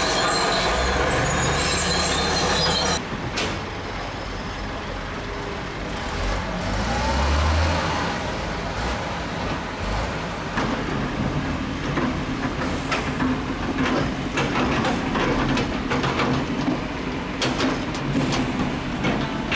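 Zoomlion crawler bulldozer's steel tracks squealing with high-pitched tones for the first few seconds. After an abrupt drop in level, the diesel engine runs and revs up briefly near the middle, with the tracks clanking repeatedly through the rest.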